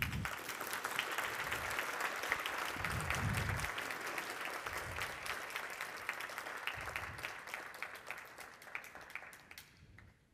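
Audience applauding, many hands clapping at once, slowly dying away over the last few seconds.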